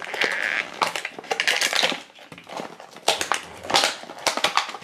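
Blind-pack toy packaging being pulled open by hand: plastic and foil crinkling and scraping in several short bursts.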